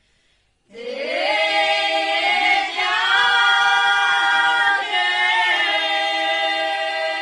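A women's choir singing a folk song in Abruzzese dialect, unaccompanied, in long held notes sung together in harmony. The voices come in together on a rising slide just under a second in, after a brief silence.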